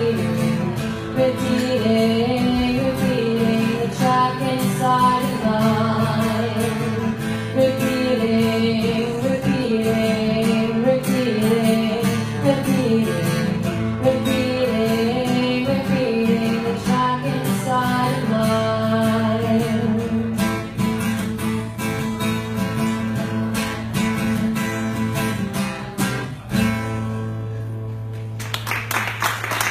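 Live acoustic band: a woman singing over strummed acoustic guitars. The voice drops out after about 20 seconds, and the song ends on one held guitar chord ringing out over the last few seconds, with applause just starting at the very end.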